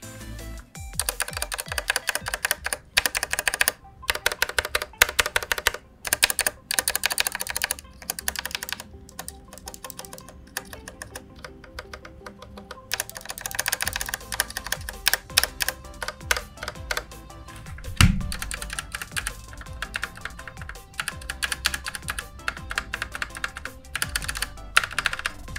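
Typing on a TM680 mechanical keyboard with Gateron Yellow linear switches and lubricated stabilizers: fast runs of key clacks in bursts with short pauses, and one heavier thud about 18 seconds in. Background music plays throughout.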